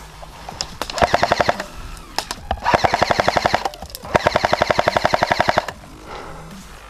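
Airsoft rifle firing three full-auto bursts, each longer than the last, at about ten shots a second.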